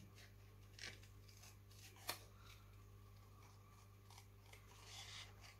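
Small scissors cutting slowly around a stamped image on paper: a few faint, spaced snips, the clearest about two seconds in.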